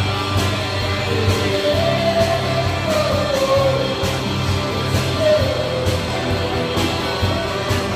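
Live rock-style band playing through a PA: drum kit keeping a steady beat, electric bass, and a Telecaster-style electric guitar, with a man singing a melody into a microphone.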